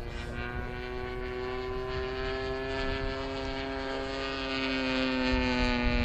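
O.S. 160 FX two-stroke glow engine of a model Edge 540 aerobatic plane running at high speed in flight, with its propeller. It is a steady buzzing note that grows louder over the last couple of seconds as the plane comes nearer, dipping slightly in pitch near the end.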